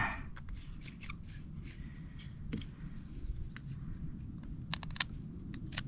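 Small pocket knife carving into wood with light scraping and scattered small clicks. This is deepening a bow drill socket.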